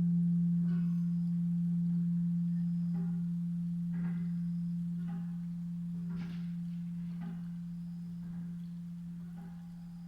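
Large Japanese temple bell (bonshō) humming after a strike: one low steady tone with fainter higher overtones, slowly fading away. Brief faint higher sounds come and go over the hum.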